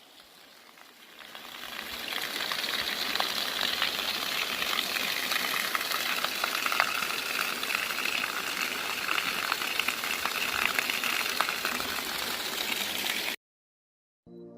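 Rushing water of a waterfall: a steady hiss of falling, splashing water with fine crackling spray. It fades in over the first couple of seconds and cuts off abruptly near the end.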